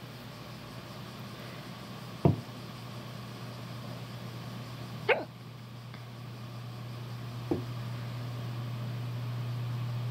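A person hiccupping three times, each a short sharp "hic", about two and a half seconds apart. A steady low hum runs underneath and grows louder.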